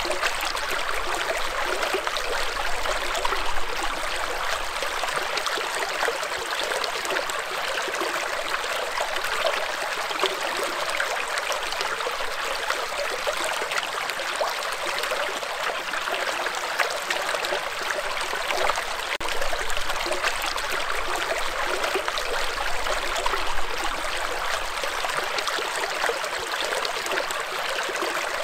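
Shallow rocky stream running over and between stones in small riffles: a steady rush of water with fine splashing.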